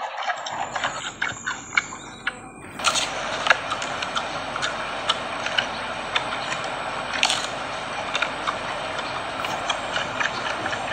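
Giant panda biting and chewing bamboo stalks: quick, irregular crunches and cracks.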